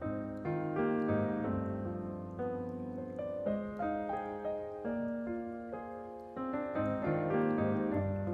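Background piano music: a gentle keyboard melody over chords.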